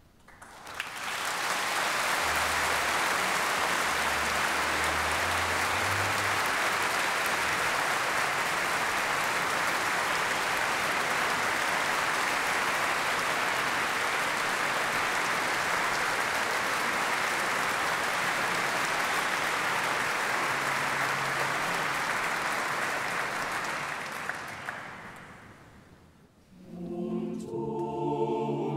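Audience applause that swells in within the first second, holds steady, and dies away about 25 seconds in. About two seconds later, a choir begins singing.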